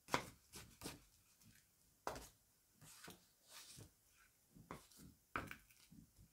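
Glue stick rubbed and dabbed over paper wrapped on foam board: faint soft scraping with a handful of sharp little taps.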